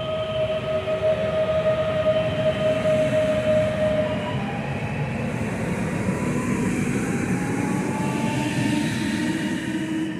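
Electric multiple unit passing close by along the platform: a steady rumble of wheels on rail, with a high whine that fades out about four seconds in and then tones that slide lower as the train goes by.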